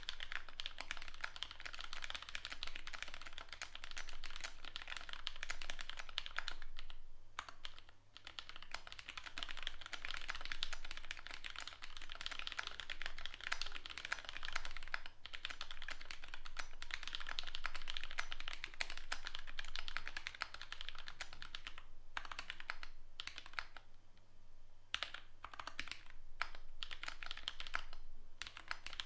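Custom mechanical keyboard with an acrylic plate, SP-Star Dark Magic Girl switches, GMK keycaps and no stabilizers, typed on quickly in a dense, continuous clatter of keystrokes. Near the end the typing thins out into separate, spaced key presses.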